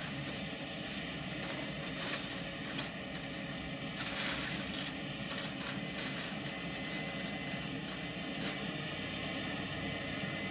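Case IH 9240 Axial-Flow combines running steadily while harvesting wheat, a constant machine drone with a few brief swishes.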